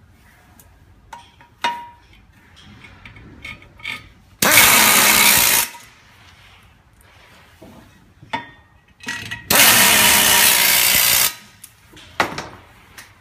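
Handheld power screwdriver running in two bursts of a second or two each, driving screws while assembling a chair's metal armrest frame. Small knocks and clicks of parts being handled come in between.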